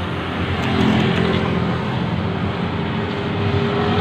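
A motor vehicle engine running steadily, with a faint steady hum underneath.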